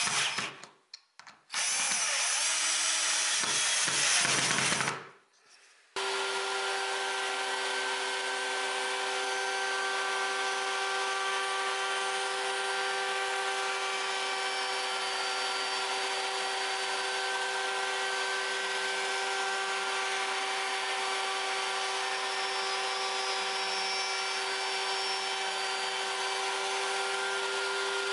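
A Makita cordless drill drives screws into a small wooden block: a few short bursts, then one run of about three seconds. From about six seconds in, a router table runs with a constant high hum while a small oval wooden piece is fed around its bearing-guided bit.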